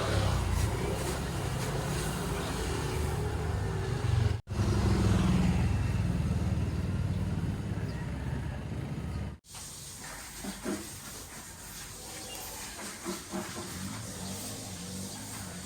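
Low, steady rumble of a car on the road, cut off abruptly twice. After the second cut, a quieter steady hiss with a few faint clicks.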